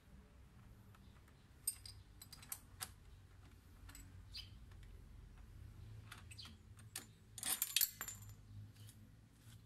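Small metallic clicks and clinks of a hex key working the bolt on a motorcycle muffler's hanger bracket and of the stainless muffler being handled, with a louder run of ringing metal clinks near the end.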